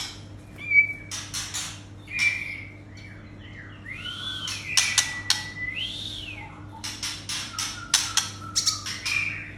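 White-rumped shama (murai batu) singing a varied song: clear whistles, a few that arch up and fall, mixed with harsh, sharp chattering notes. A steady low electrical hum runs underneath.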